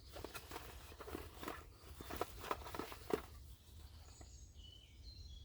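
Close handling noise: a string of small clicks and light rustling over the first three seconds, then quieter, with a few faint bird chirps near the end.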